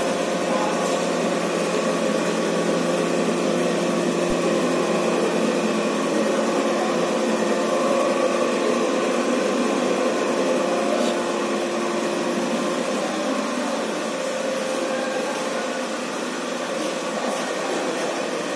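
Hydraulic plate shearing machine's pump motor running steadily, a hum with a whine over a hiss. One of the tones drops out about two-thirds of the way through.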